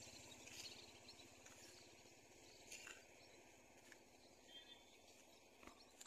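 Near silence: faint outdoor hiss, with a few soft, short clicks.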